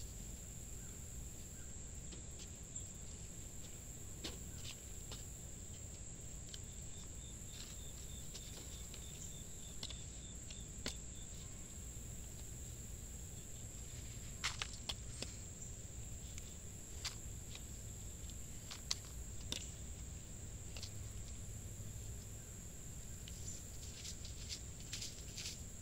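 Steady high-pitched drone of crickets, with scattered light clicks and scrapes of a spoon scooping potting soil and small plastic nursery pots being handled.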